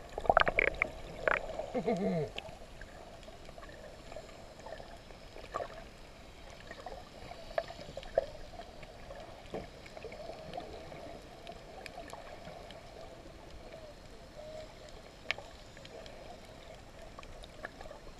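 Muffled underwater sound heard through a submerged camera: splashing and bubbling for the first couple of seconds, then a steady low hum with scattered faint clicks.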